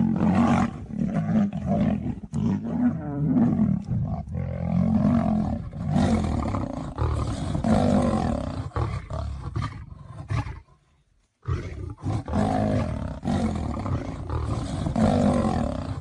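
Lion roaring and growling in repeated heavy bouts, about one a second, with a brief cut-out a little past the middle.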